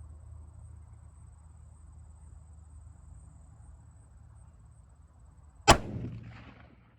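A single shot from a Remington 700 rifle in .30-06, sudden and loud, about two thirds of the way in, with a short echo dying away over about a second after it. Before the shot, only a faint steady low hum.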